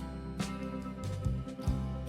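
Background music: sustained chords over a regular beat.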